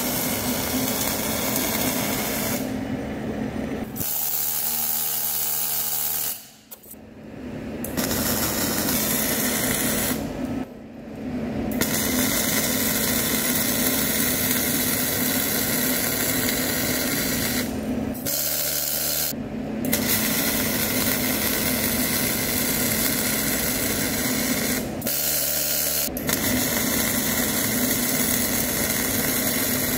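MIG welding on heavy steel: a steady crackling, buzzing arc that stops and restarts several times, with a few pauses of about a second.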